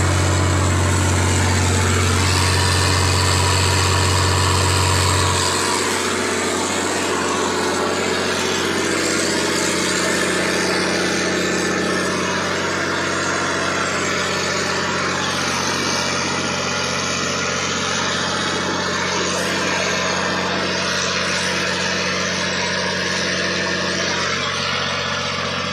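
Boat engine running steadily under a hiss of wind and water; about five seconds in its deep low hum drops away abruptly and the engine runs on a little quieter.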